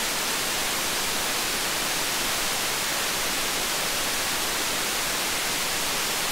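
Steady, fairly loud hiss of a TL072 JFET-input op amp's own noise, amplified by a gain-of-101 test circuit, brightest in the treble. The TL072's noise is specified high, at 18 nanovolts per root hertz.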